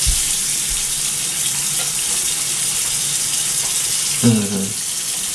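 Water tap running steadily into a sink, an even hiss of water.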